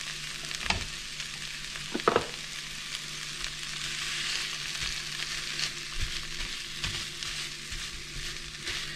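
Pinto beans sizzling steadily as they fry in hot lard in a cast-iron pan. A utensil knocks against the pan twice in the first couple of seconds, and a plastic potato masher makes soft thuds as it presses into the beans later on.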